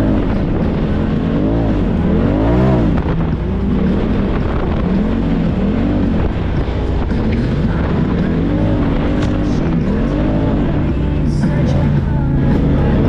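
Side-by-side UTV engine revving up and down again and again as it drives a sandy trail, its pitch rising and falling in quick swells.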